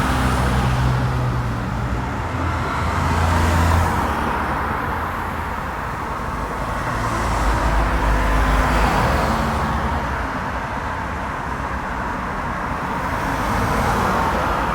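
City street traffic: continuous road noise of engines and tyres, with vehicles passing. The low engine rumble swells with two louder passes, about four and about eight seconds in.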